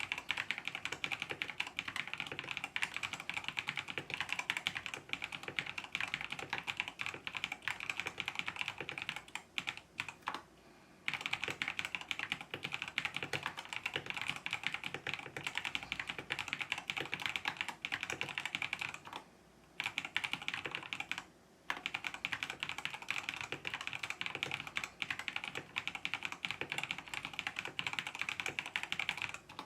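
Fast, continuous typing on a LANGTU LT84 sandwich-mount mechanical keyboard: a dense stream of key clacks that stops briefly about ten, nineteen and twenty-one seconds in.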